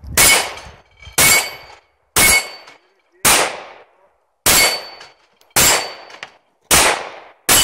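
Pistol shots fired at a steady pace, about one a second, eight in all. Most shots are followed by the short ringing clang of a steel plate target being hit and knocked down.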